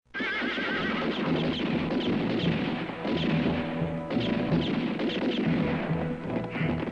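Film soundtrack: music mixed with the crashing sound effects of a horse-drawn wagon overturning among horses.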